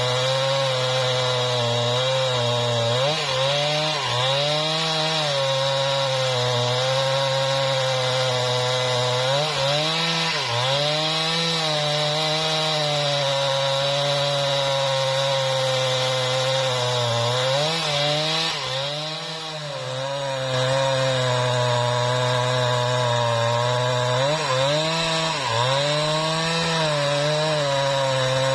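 Husqvarna 395XP two-stroke chainsaw running at high revs, cutting lengthwise through a mahogany log. The engine pitch sags and recovers several times as the chain loads up in the cut, and it eases off briefly about two-thirds of the way through.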